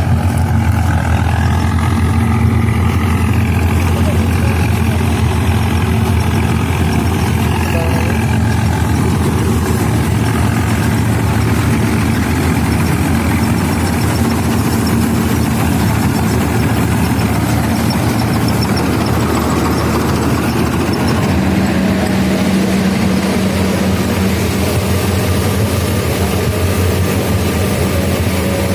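Swaraj 855 tractor's diesel engine running a tractor-driven combine harvester, a steady low drone with the machinery's noise over it. The tone changes slightly about two-thirds of the way through.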